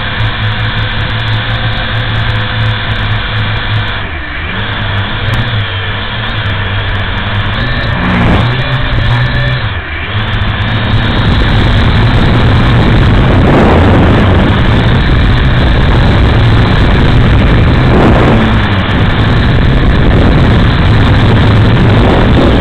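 Multirotor drone's electric motors and propellers whirring in a steady multi-tone buzz, picked up by its own onboard camera. The pitch dips and recovers briefly a few times as it manoeuvres, and it gets louder about halfway through.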